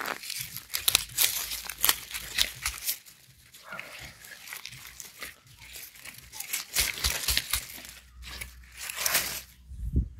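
Dry wood-chip mulch rustling and crackling as a hand digs in and pulls a garlic bulb out by its stem, the roots tearing loose. The crackling comes in irregular bursts, easing off midway and picking up again near the end.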